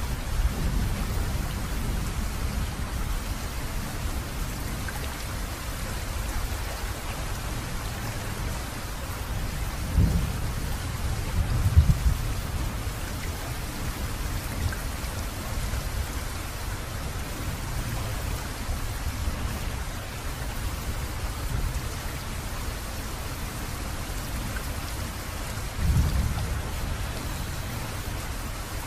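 Steady rain with low rolls of thunder: one about ten seconds in, a stronger one soon after, and another near the end.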